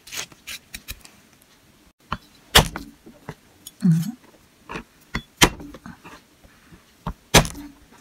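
Knife striking a plastic cutting board in a few separate knocks while garlic cloves are cut and crushed, the loudest about two and a half, five and a half and seven and a half seconds in, with fainter taps between.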